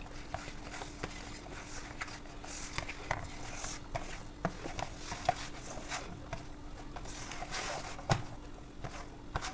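Hands kneading soft, shaggy bun dough in a stainless steel bowl: quiet squishing and scattered light taps and scrapes against the bowl, one sharper knock about eight seconds in, over a faint steady hum.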